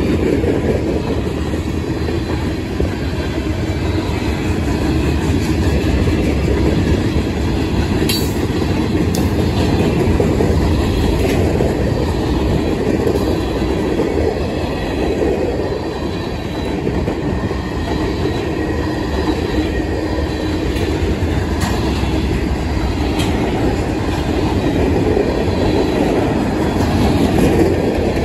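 Mixed freight train cars rolling past close by: a steady, loud rumble of steel wheels on the rails with clickety-clack over the rail joints, and a single sharp clank about eight seconds in.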